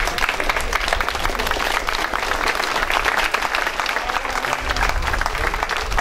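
Audience applauding, many hands clapping together in a steady, dense patter.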